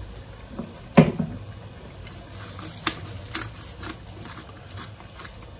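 Potatoes simmering in a little water and olive oil in an open pan, a quiet steady bubbling. There is one sharp knock about a second in, then a few scattered clicks from a pepper grinder being turned over the pan.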